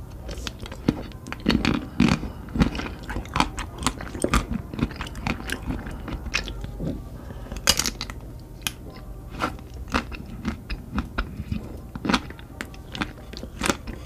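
Close-miked ASMR eating: bites into chocolate-coated ice cream bars, with chewing and crunching heard as many irregular sharp snaps.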